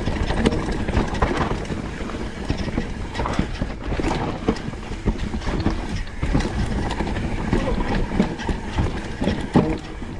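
Mountain bike rolling over a rocky trail, its tyres, frame and chain clattering in quick, irregular knocks over a steady low rumble.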